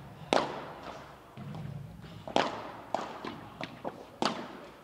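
Padel rally: three sharp pops of the ball struck by the padel rackets, about two seconds apart, with several lighter ticks of the ball between the second and third.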